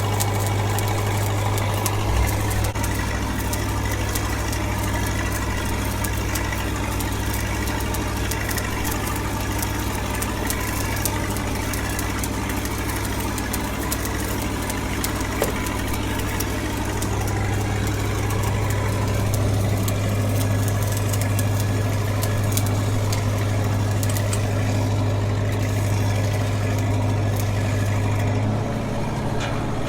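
Engine-driven welding machine running steadily, with the fine crackle of a stick-welding arc as a pass is run on the pipe.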